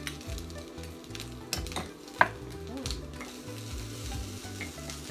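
Vegetables sizzling in a small frying pan as cooked rice is spooned in and stirred, a metal spoon scraping and clicking against the pan, with one sharp clack about two seconds in.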